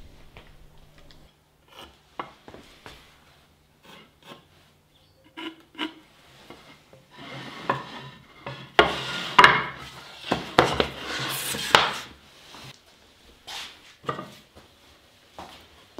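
Hand work on wood at a workbench: scattered knocks and clicks of tools and wooden pieces being handled. About seven seconds in, a few seconds of rasping, scraping strokes.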